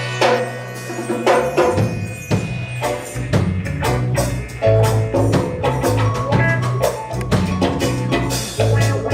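Live band playing an instrumental passage between sung lines: a bass line under regular percussion strikes keeping a steady beat.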